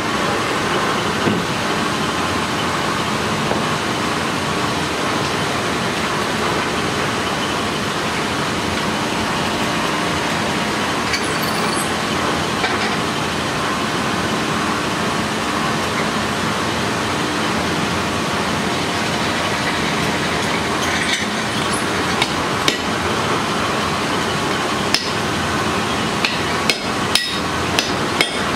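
Steady rushing noise of a blacksmith's forge running, with light metallic taps and clinks of hammer and tools from about ten seconds in, several close together near the end.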